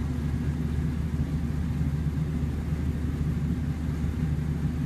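Steady low rumble that neither rises nor falls, with its weight at the bottom of the range.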